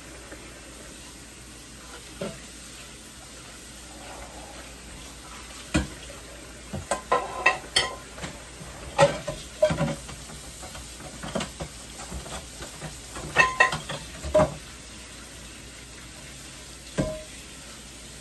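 Dishes and cookware clinking and knocking together in a kitchen sink as they are washed by hand, over a steady hiss. The clatter comes in a run of sharp clinks through the middle, some ringing briefly, with one more knock near the end.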